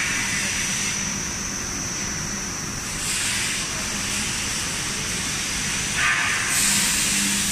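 PLASTAR MSD 45 monolayer HDPE blown film machine running: a steady mechanical noise with a constant high-pitched whine and air hiss. The hiss swells briefly about three seconds in and again about six seconds in.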